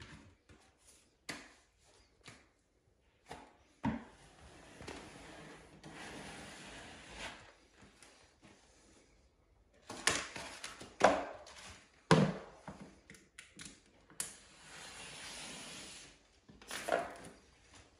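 Wallpaper being worked by hand against the wall: two long stretches of paper rubbing and brushing, broken by scattered taps and knocks of hand tools.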